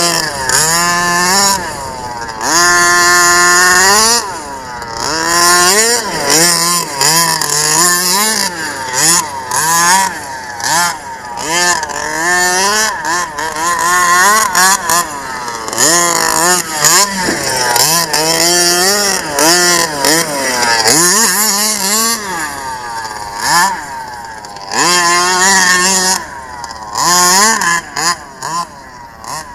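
Two-stroke petrol engine of a 1/5-scale RC truck revving up and down again and again under throttle, with short bursts and one longer high run a few seconds in. It gets somewhat fainter near the end.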